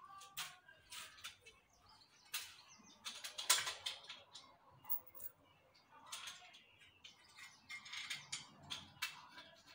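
Irregular clicks and rattles of satellite dish parts being handled and fitted together: the LNB arm and its bracket knocking against each other, with the loudest click about three and a half seconds in.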